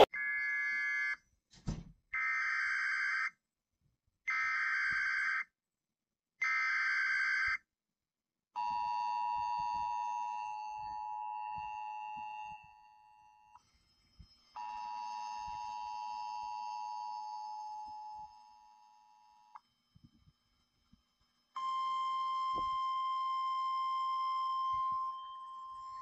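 Emergency Alert System alert: four buzzy, screeching digital data bursts of about a second each (the SAME header), then the two-tone attention signal sounded twice for about five seconds each. About 21 seconds in, a steady single-pitch alert tone starts.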